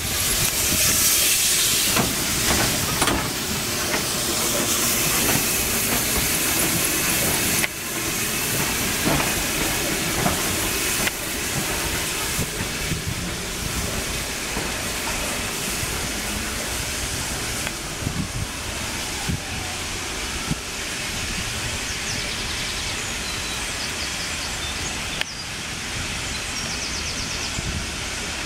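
Steam locomotive hissing steam, with the rumble of the train on the rails.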